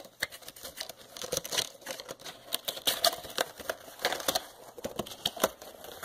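Hands opening a cardboard product box and handling its packaging: a run of irregular small clicks and taps with light rustling.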